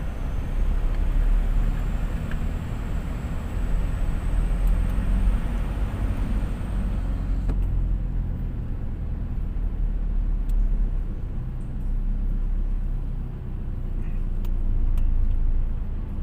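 Steady low rumble of a car's engine and tyres heard from inside the cabin while driving. A faint high whine in the first half stops about halfway through.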